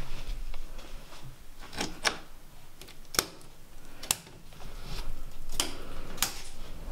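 About six sharp, irregularly spaced clicks and knocks, as of small hard objects being handled or knocked, over a low background rumble.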